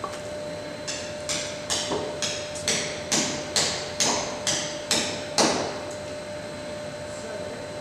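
Hammer blows struck through a wooden block onto a vac truck's auger stub shaft to drive it back: about a dozen quick, sharp knocks, roughly two a second, each with a short ring. The wood is too soft to give the shaft much movement.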